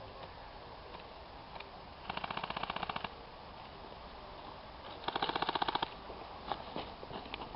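Airsoft gun firing two full-auto bursts of about a second each, a rapid even rattle of shots, followed by a few scattered single shots near the end.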